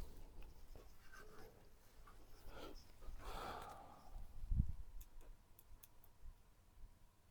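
Faint handling noises of PC parts being fitted by hand: rustling and scraping, a dull low thump a little past halfway, and a few light clicks just after it.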